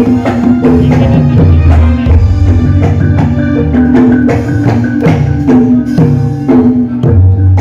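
Jaranan gamelan ensemble playing through a PA system: hand-struck kendang drums, metallophones, gongs and keyboard, with a quick, steady rhythm of strikes over held bass notes.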